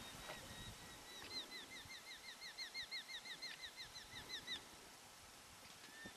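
A bird calling: a rapid run of the same short slurred note repeated about five times a second for over three seconds, then stopping. Faint outdoor background hiss underneath.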